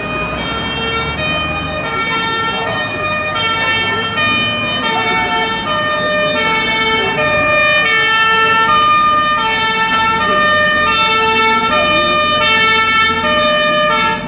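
Two-tone siren (Martinshorn) of an Iveco fire engine, switching back and forth between two notes about every half second. It grows louder over the first half and cuts off abruptly near the end.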